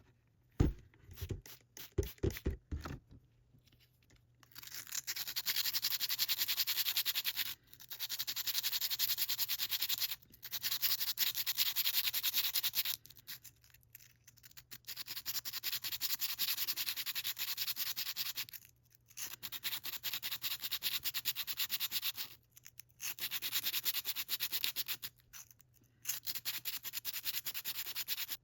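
Rusty metal tool being scrubbed with an abrasive to clean off rust, in repeated stretches of rapid scratching with short pauses between them. A few light knocks come first as the tool is handled.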